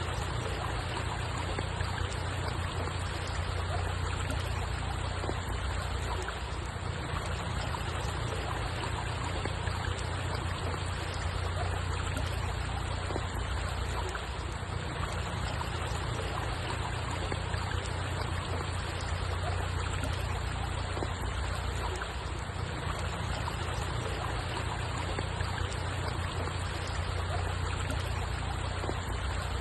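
Steady running, trickling water in an unbroken wash of sound, with a low rumble underneath.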